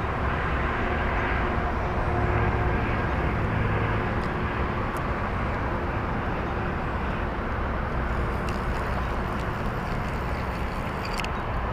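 Steady outdoor background noise with a faint hum, and a few faint clicks from a small fishing reel being handled.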